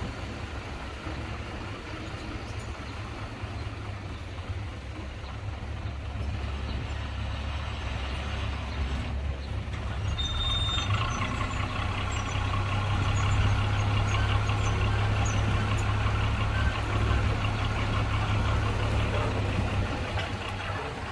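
Heavy diesel construction machinery running steadily, its engine note growing louder about halfway through, with a brief high squeal just after.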